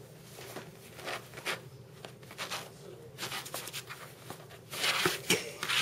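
Cardboard sheet scratching and rustling in short, irregular strokes, louder about five seconds in, as a cat paws at it with a finger moving underneath.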